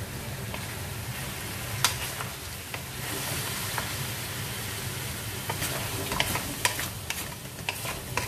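Pork spare ribs sizzling as they are sautéed in a wok, stirred and scraped with a wooden spatula that clicks against the pan now and then. The sizzle grows louder about three seconds in.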